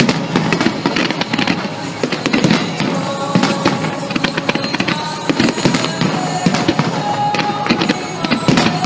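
A fireworks display: rocket shells bursting in quick succession with many sharp bangs and crackles, over music playing alongside.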